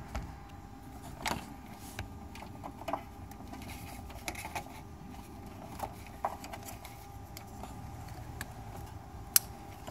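Faint scattered clicks and light rubbing, the sound of hands and equipment being handled, over a low steady hum, with one sharp click near the end.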